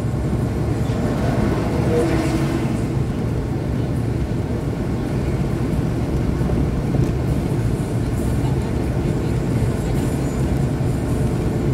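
Steady road and engine noise inside a car's cabin at highway speed, swelling briefly about two seconds in as the car overtakes a tanker truck.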